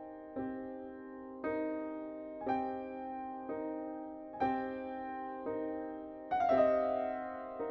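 Slow background piano music: notes struck about once a second and left to ring, with a louder, fuller chord near the end.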